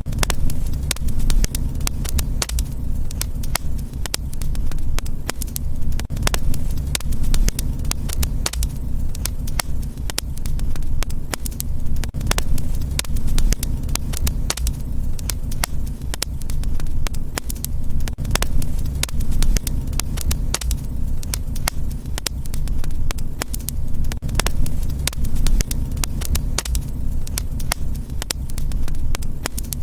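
Fireplace fire crackling, with frequent sharp pops and snaps over a steady low rumble of flames.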